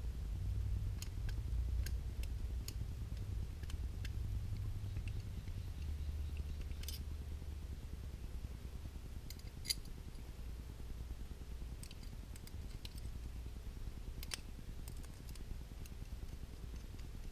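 Scattered faint metallic clicks and taps of a screwdriver and parts in a Ruger Vaquero single-action revolver's frame as its springs are worked back into place, over a low steady rumble.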